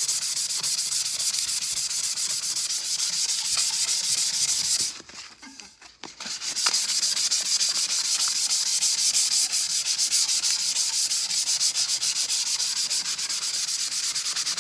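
100-grit sandpaper on a hand sanding block scrubbing a stainless steel tumbler in rapid back-and-forth strokes, scuffing off its finish. The strokes stop for about a second about five seconds in, then carry on.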